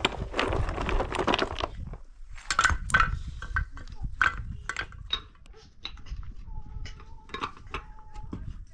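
Rough stones and concrete hollow blocks clattering and knocking as they are handled and laid in a block wall: a dense rattle of stones in the first two seconds, then scattered sharp knocks and clinks. A thin steady tone sounds faintly over the last second and a half.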